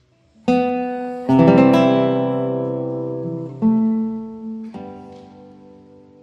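Background music: an acoustic guitar strumming four chords, each left to ring and fade.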